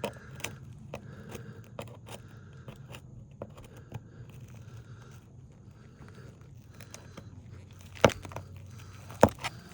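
Asphalt roof shingles being worked loose with a small pry bar around a remaining fastener: light scraping and crackling, with two sharp clicks near the end.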